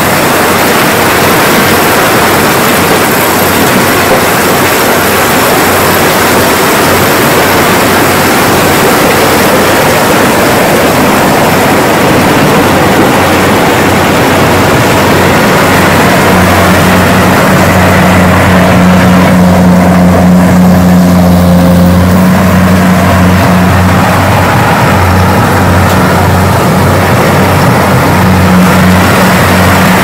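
Kubota DC-105X combine harvester with a corn header running as it harvests corn: a steady engine drone under the dense rushing clatter of the header and threshing machinery taking in stalks. About halfway through, the low engine hum comes forward more clearly.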